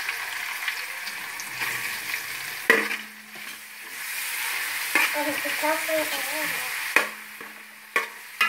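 Sliced onions sizzling as they fry in hot oil in a metal pan, just added and being stirred with a steel spoon. The spoon knocks sharply against the pan about four times.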